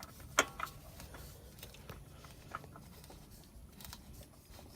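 Faint handling noise of a new oil filter being screwed on by hand onto a Kawasaki Mule engine: a few light clicks and scrapes, the sharpest about half a second in.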